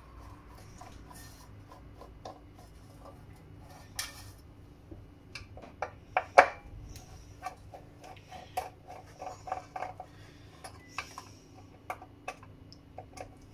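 Irregular small metallic clicks and clinks from hands and a screwdriver working a sheet-metal screening can off a radar scanner's circuit board, with one sharper click about six seconds in. A faint steady hum runs underneath.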